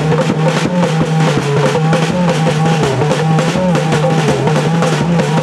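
Live drumming with many quick drum strokes, over a continuous, wavering held tone.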